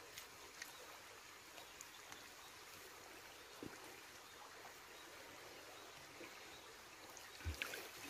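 Near silence: a faint steady outdoor hiss with a few soft clicks, a short thump about three and a half seconds in, and a low thump near the end.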